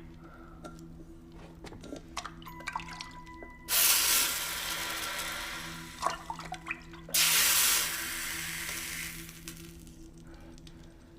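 Water thrown onto a hot surface, hissing into steam twice. Each burst starts suddenly and dies away over a couple of seconds, with a few knocks in between. Faint steady low tones run underneath.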